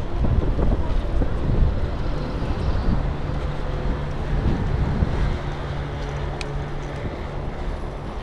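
Wind buffeting the microphone of a bike-mounted camera while cycling, a steady low rumble mixed with the ride's road noise.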